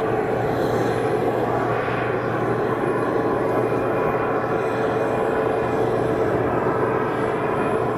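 Airbus A320-232 airliner landing, its IAE V2500 jet engines giving a steady, even noise with a constant hum.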